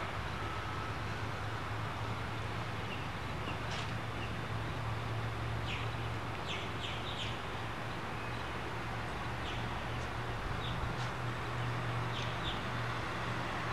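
Outdoor ambience: a steady low hum and hiss, with short, high bird chirps scattered through the middle.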